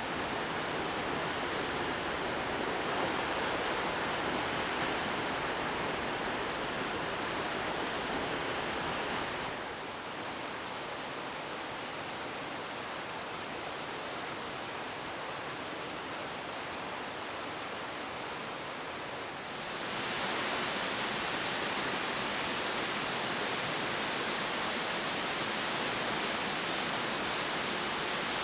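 Steady rushing of a waterfall's falling water. The sound changes abruptly twice: it turns duller and a little quieter about ten seconds in, then brighter and louder again about twenty seconds in.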